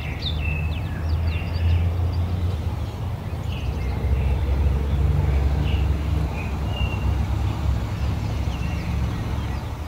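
A low, steady rumble with birds chirping now and then, the chirps thickest near the start.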